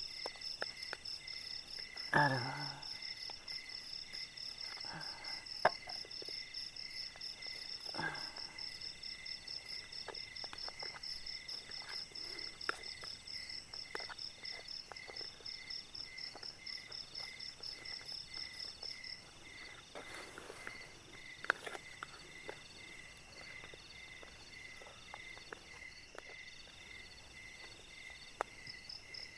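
Night insects chirping in fast, steady pulses; one high chorus stops about 19 s in and starts again near the end. Over them come scattered light clicks and taps as food is cut with a knife into a plastic plate, and a short voice sound about 2 s in.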